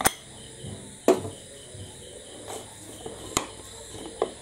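A pressure cooker being opened once its steam has gone down: the whistle weight is lifted off and the lid is twisted loose, giving four sharp metal clicks and clanks, the loudest about a second in with a brief ring. A steady high-pitched hum runs underneath.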